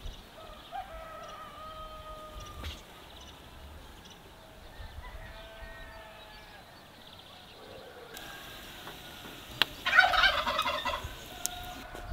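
Farmyard fowl calling: faint calls early on, then one loud, rapid warbling call lasting about a second, starting about ten seconds in.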